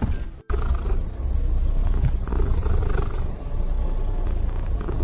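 A cat purring close to the microphone, a steady low rumble that starts about half a second in.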